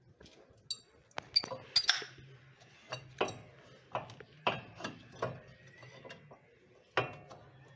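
Metal clinks and knocks of brake caliper parts and hand tools being handled and fitted, a dozen or so sharp strikes, a few with a brief metallic ring in the first two seconds.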